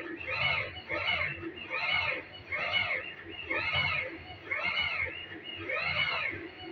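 Stepper motor driving a ball-screw axis in short repeated moves. Each move is a pitched whine that rises and falls as the motor ramps up and slows down, about eight times, a little under a second apart.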